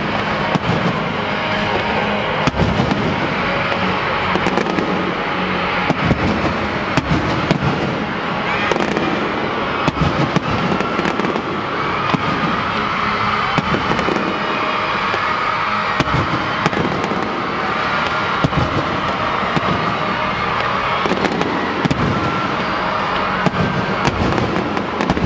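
Fireworks going off in many quick, irregular bangs, with music playing underneath.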